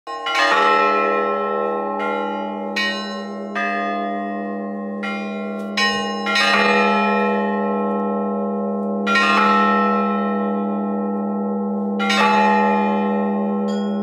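Russian Orthodox church bell ringing (zvon): a ringer strikes several bells of a small belfry by hand, the heavier strokes coming about every three seconds with lighter, higher strokes between them. A deep bell tone hangs under it all, and each stroke rings on and fades slowly.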